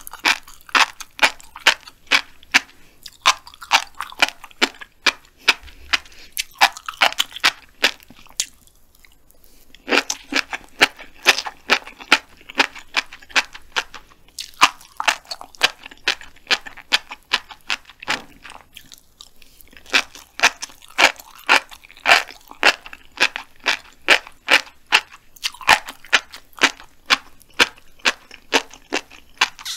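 Black flying fish roe crunching and popping as it is chewed with the mouth closed, close to the microphone: a rapid run of crisp clicks like footsteps in snow. It stops briefly twice.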